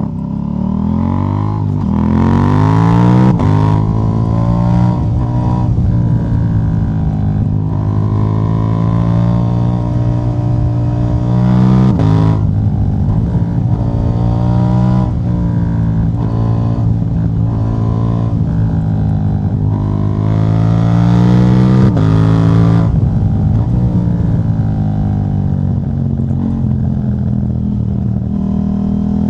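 KTM 790 Duke parallel-twin engine with its catalytic converter removed, its pitch repeatedly rising and then dropping suddenly a few times as the revs change.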